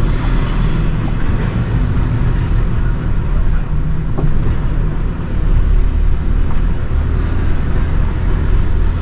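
Iveco lorry's diesel engine running and the truck rumbling along at low speed, heard from inside the cab. A steady low drone that gets heavier about five and a half seconds in.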